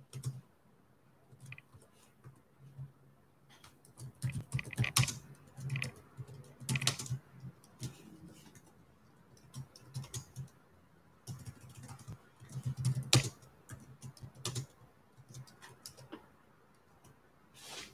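Typing on a computer keyboard: quick runs of keystrokes with pauses between them, the busiest stretches starting about four seconds in and about eleven seconds in.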